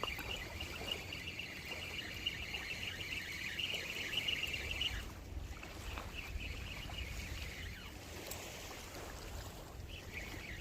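Seawater washing at the shoreline over a low wind rumble, with a high, fast chirring that stops about five seconds in.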